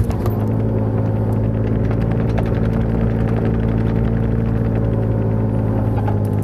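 Kubota KX-018 mini excavator's diesel engine running at a steady speed.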